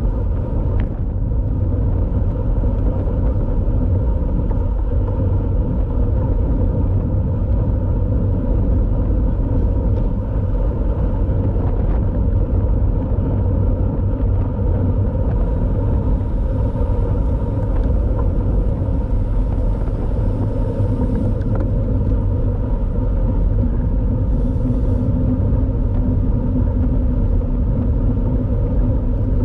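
Steady low rumble of wind and road noise from riding a road bike at race speed, with a few faint steady tones above it.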